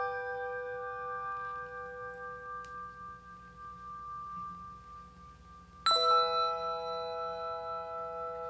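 Music with bell-like chime notes: one chime rings on and fades slowly, then a second chime is struck about six seconds in and keeps ringing.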